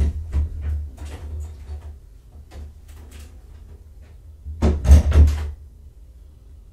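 A run of knocks and clunks in the room, with the loudest cluster of knocks about five seconds in.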